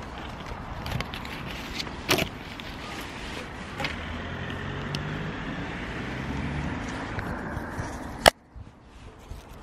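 A vehicle engine running in the street, a steady low hum for a few seconds, over a noisy background with a few scattered knocks. A sharp click about eight seconds in, after which it goes much quieter.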